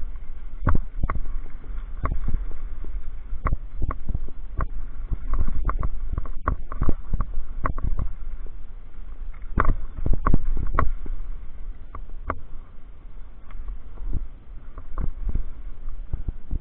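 Mountain bike rattling down a rocky, dusty downhill trail, heard from on board: a steady low rumble with frequent sharp knocks and clatters as it hits stones and bumps.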